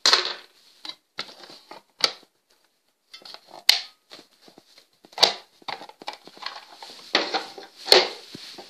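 Small plastic and metal parts of a camera lens assembly being handled and pulled apart by hand: irregular clicks, clatter and rustling, with a few sharp snaps.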